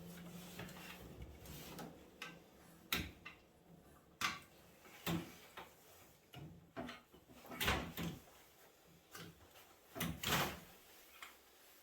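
Irregular metal clanks and knocks of a microwave oven being taken apart by hand, tools and metal parts knocking together about once a second.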